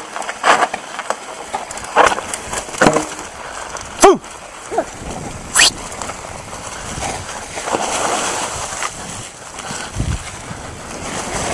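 Mountain bike riding down a rough rocky and leaf-covered trail: tyre noise over the ground with frequent sharp knocks and rattles of the bike over bumps, and wind on the helmet camera. The loudest knock comes about four seconds in, with a brief falling tone.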